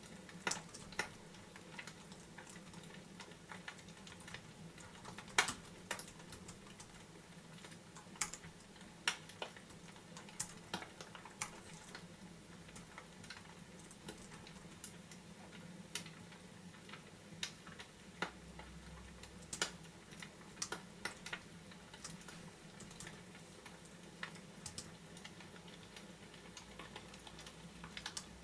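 Fireplace crackling: sparse, irregular sharp pops and snaps over a steady low background.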